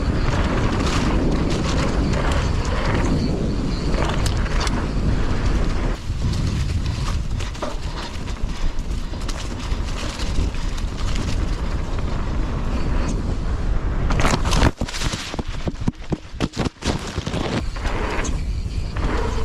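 Wind rushing over the helmet camera's microphone while a mountain bike rolls down a dirt trail, with tyre noise and the rattle and clatter of the bike over rough ground. About two-thirds of the way through comes a short run of sharp knocks with brief dips in the noise.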